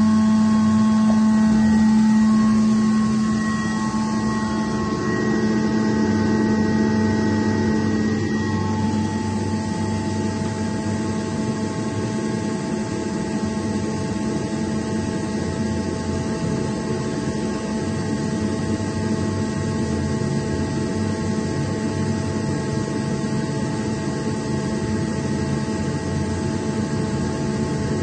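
Atlas Copco GA18 VSD FF oil-injected rotary screw air compressor running: a steady machine drone with several steady whining tones over it. The drone eases a little about three seconds in, and some of the higher tones fade out at around eight seconds.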